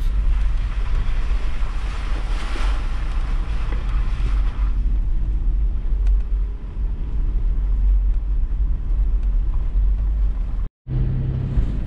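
Toyota 4Runner driving slowly over a rough, rutted dirt trail: a steady low drone of engine and tyres, with a rushing hiss over the first five seconds that then fades. The sound drops out for a moment near the end.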